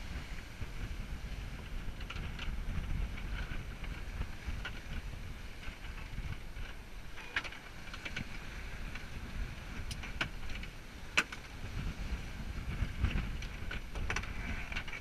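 Wind buffeting the microphone and water rushing past the hull of a sailing yacht heeled over and under way in rough sea, with a few sharp clicks.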